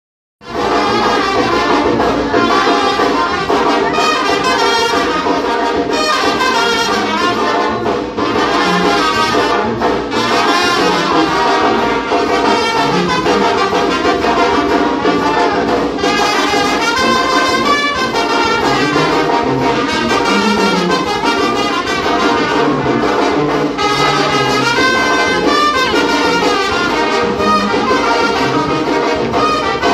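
Mexican banda brass band playing dance music, with trumpets and trombones to the fore. It starts abruptly a fraction of a second in and keeps going at a steady volume.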